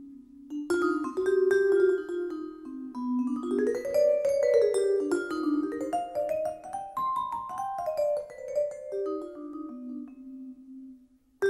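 Jazz vibraphone playing rising and falling runs of struck notes that ring on into each other, with a short break near the end before the next phrase comes in.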